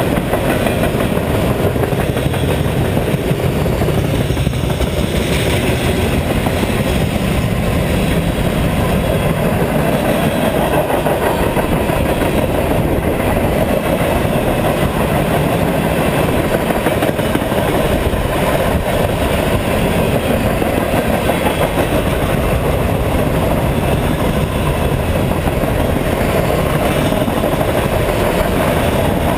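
Freight train of tank cars and boxcars rolling past close by: a loud, steady noise of steel wheels running on the rails.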